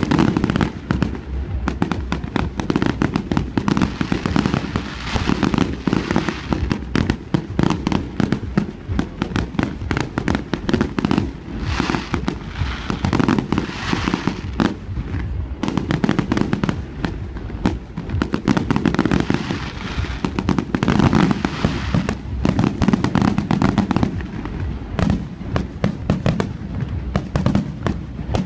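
Fireworks display: many aerial shells bursting in quick succession, an unbroken barrage of booms and bangs with no pause.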